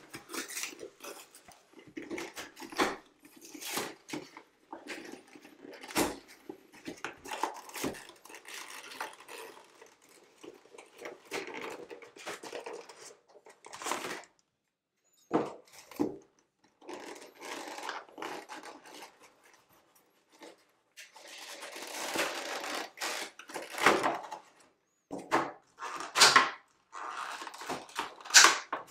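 Cardboard packaging and a clear plastic tray being torn open and handled: irregular tearing, crinkling and rustling with sharp clicks and knocks, broken by a few brief silent gaps.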